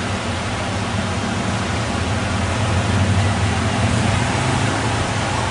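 Steady beach noise of surf and wind buffeting the microphone, a low rumble under an even hiss that swells slightly midway.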